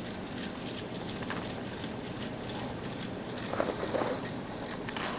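Toy gyroscope spinning on the floor with a steady whirring hiss.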